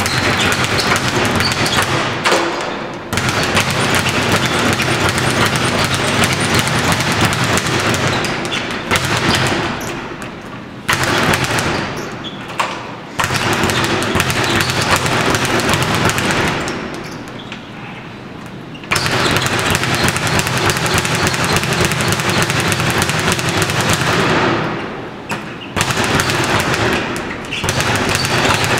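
Speed bag rattling in a fast, continuous drumming rhythm as it is punched and rebounds off its platform. The rattle breaks off briefly several times and then starts again.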